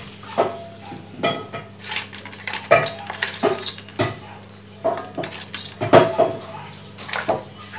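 Wooden chopsticks clacking and scraping against mantis shrimp shells and the metal steamer pot as the shrimp are arranged in layers: irregular sharp clicks, a few with a brief ring.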